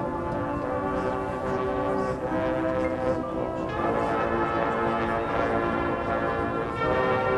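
High school marching band playing, with brass holding sustained chords and bell-like ringing tones. The texture changes about four seconds in and gets louder near the end.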